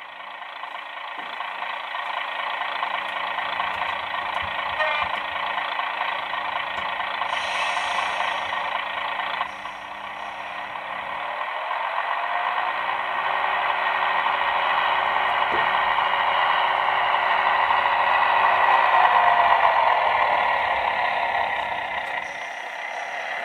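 DCC sound decoder in a Heljan OO gauge Class 128 diesel parcels unit playing its diesel engine sound through the model's small speaker as the unit pulls away. The engine note grows louder through the second half, with a brief dip about ten seconds in and a short hiss about eight seconds in, then eases off near the end.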